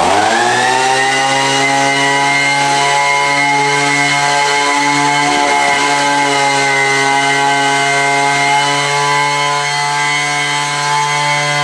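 Petrol leaf blower's small engine revving up just after starting, then running steadily at high speed with the fan's rush of air.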